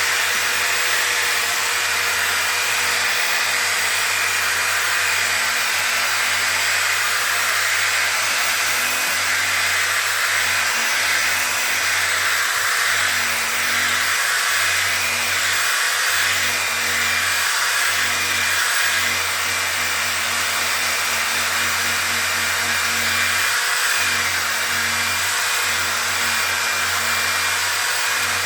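Handheld electric power tool running steadily under load, sanding a plastic headlight lens.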